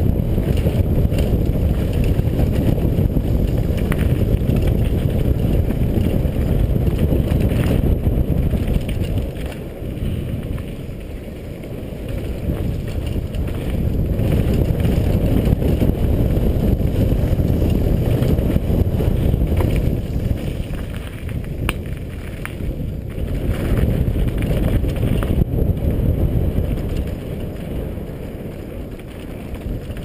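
Wind buffeting a helmet-mounted GoPro's microphone at speed, mixed with the downhill mountain bike's tyres crunching over dirt and rock and the bike rattling, with a few sharp knocks. The rush eases for a few seconds about ten seconds in, again after about twenty seconds, and near the end.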